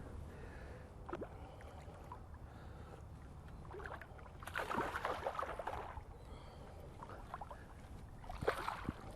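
Water splashing and lapping around a small fishing boat, with a few light knocks. The loudest splashing comes about four and a half seconds in and lasts over a second, with a shorter burst near the end.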